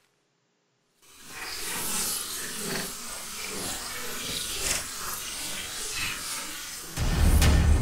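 About a second of silence, then a breathy, rasping hiss that swells and wavers for several seconds. Near the end a loud music hit with a heavy timpani-like drum comes in.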